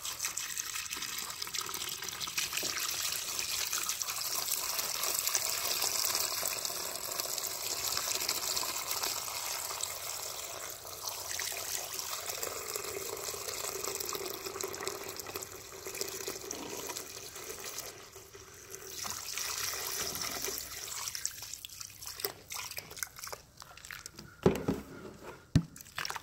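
Evapo-Rust rust remover pouring in a steady stream from a bottle into a plastic bucket, splashing over a rusty two-barrel carburetor. The pour fades out about three quarters of the way through, and a few sharp knocks follow near the end.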